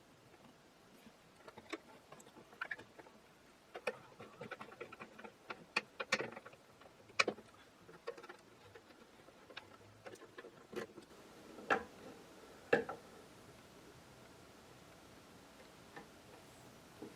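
A scattered run of light clicks, taps and small knocks from small objects being handled on a workbench, irregular and loudest near the middle and about two-thirds through, then only faint room tone for the last few seconds.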